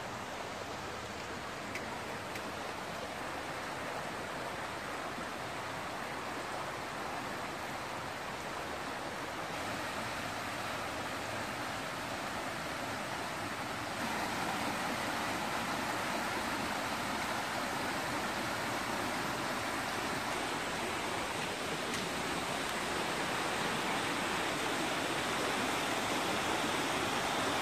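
Rushing water of a rocky stream, a steady hiss that gets louder about halfway through and a little louder again near the end.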